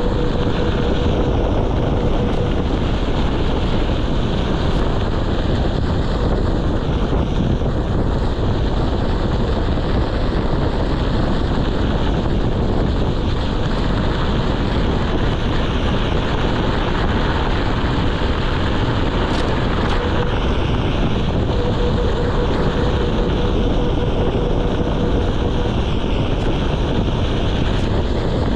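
Steady wind rumble on the microphone and tyre noise on packed dirt as an Onewheel GT-S electric board rides fast. A faint steady whine comes in at the start and again for several seconds later on.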